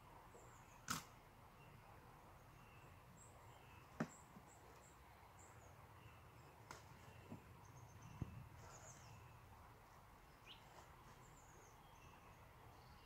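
Quiet riverside ambience with faint birdsong, broken by a few sharp clicks and knocks, the loudest about a second in and about four seconds in.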